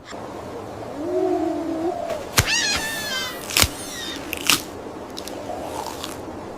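Animal calls: a low wavering cry about a second in, then a high squealing call that falls in pitch, with a few sharp clicks between them.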